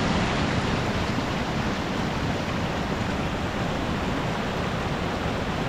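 A steady, even rush of water, full and unbroken with no distinct drops or splashes.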